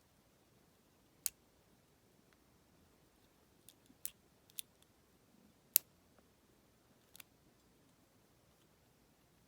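Lock pick working the pin stack inside a Federal PL90PE padlock: about six small, sharp metallic clicks at irregular intervals, the loudest a little past halfway.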